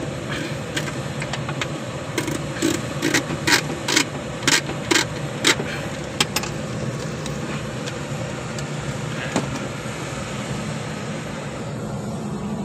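Steady machine hum in an aircraft cockpit, with a run of about a dozen sharp clicks, roughly two a second, between about two and six seconds in, and one more click a little later.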